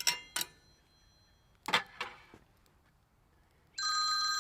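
Mobile phone ringtone ringing for an incoming call: a few sharp, bell-like ringing notes, then a steady high tone held for about half a second near the end that cuts off suddenly.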